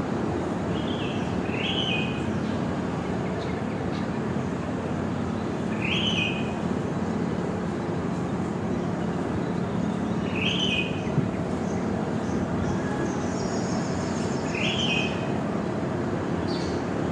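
Morning bird calls: a short call repeated about every four seconds, with a few fainter high chirps near the end, over a steady low rushing background.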